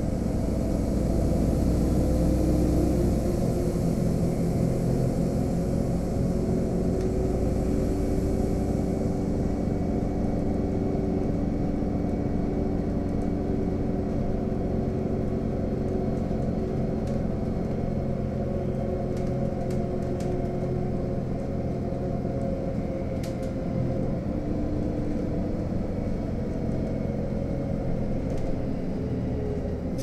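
Inside a LiAZ-5292.65 city bus under way: steady engine drone with road rumble. The higher hiss of tyre and road noise eases about ten seconds in, a few light rattles tick in the middle, and the engine tone drops near the end as the bus slows.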